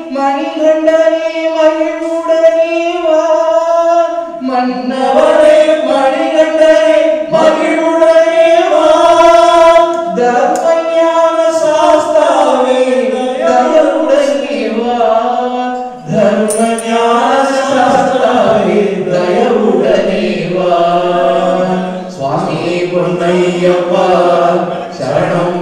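A group of voices singing a Hindu devotional chant together, unaccompanied, on long held notes that glide from one pitch to the next.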